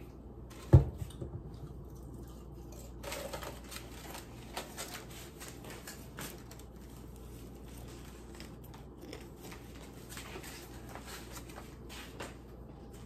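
A single sharp knock about a second in, then faint scattered clicks and rustles as a ketchup bottle and a plate of food are handled.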